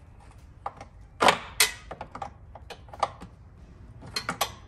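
Hand tools clicking and clanking irregularly as a 10 mm socket works loose the bolts holding a plastic air-deflector panel behind a car's front bumper, with the loudest knocks a little over a second in.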